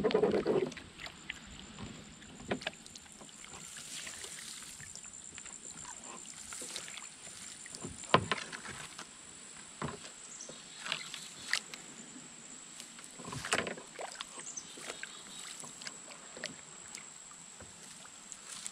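Kayak being paddled through shallow river water: irregular splashes and knocks of the paddle every second or two over a faint wash of water.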